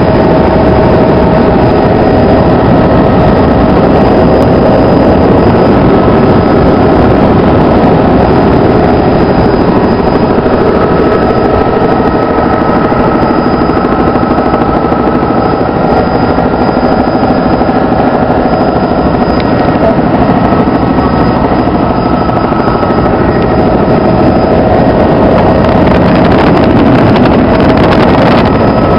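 Helicopter cabin noise in flight: the engine and rotors make a loud, steady din, with a faint steady whine on top that does not change.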